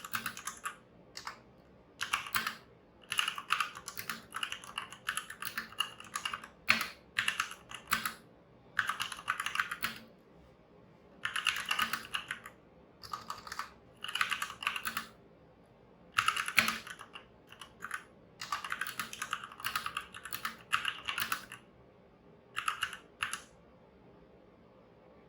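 Typing on a Motospeed CK62 60% mechanical keyboard with red linear switches: runs of rapid key clacks in bursts of one to two seconds with short pauses between them, stopping shortly before the end.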